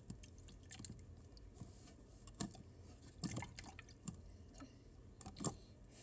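Wet hands being rinsed in a jug of water to get sticky glue slime off them: faint, irregular drips, splashes and squelches.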